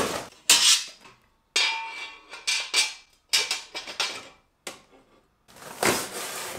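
Laser-cut stainless steel sheet parts clanking against each other as they are lifted and set down: several sharp metallic knocks, one ringing on briefly. Near the end, cardboard rustling as it is cut open with a utility knife.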